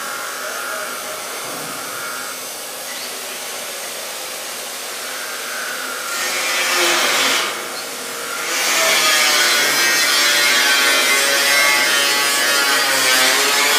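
Handheld electric power tool running against stainless steel sheet. It is moderate at first, gets much louder about six seconds in, eases briefly near eight seconds, then runs loud and steady.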